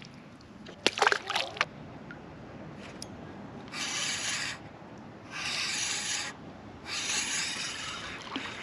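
A spinning reel being cranked slowly in three spells of about a second each, a rasping whir, as a jig is retrieved. A few sharp clicks and knocks come about a second in.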